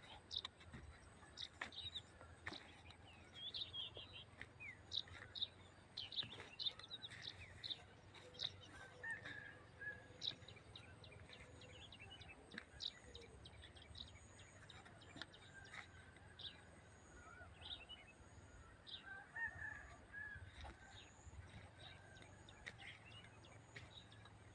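Birds chirping and calling, many short sharp chirps scattered throughout, faint against a low steady hum.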